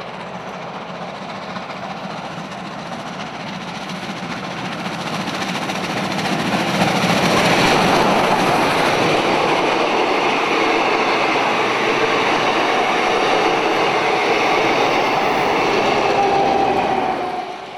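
Victorian Railways R class 4-6-4 steam locomotive R707 hauling a passenger train past at speed: the sound grows louder as the engine approaches, is loudest as it passes about seven seconds in, then stays steady as the carriages roll by on the rails.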